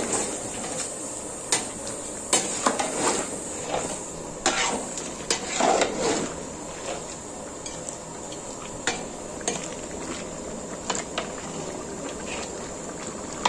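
Long metal spatula stirring chunks of mutton in a large aluminium pot, scraping and knocking against the pot's wall in irregular clanks that thin out after about seven seconds. A steady hiss runs underneath.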